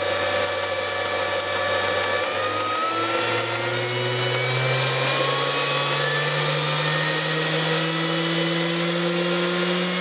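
Small dishwasher pump motor driven from a VFD, its whine rising steadily in pitch from about two seconds in as the drive frequency is ramped from 100 Hz toward 200 Hz, spinning the impeller well past its rated 2850 rpm while it pushes air.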